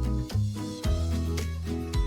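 Background music with a steady beat: bass notes and plucked, guitar-like chords.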